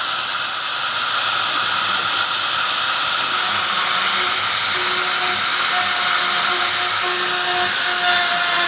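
CNC router spindle running steadily at high speed, its bit cutting into algarrobo wood: a constant high-pitched whine and hiss.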